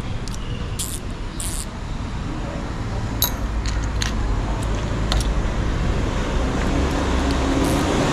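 Low rumble of road traffic, swelling toward the end, with scattered light clicks of hand tools and small motorcycle parts being handled.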